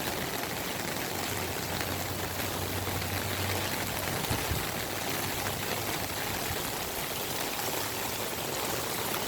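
Steady rush of heavy rain and running floodwater draining.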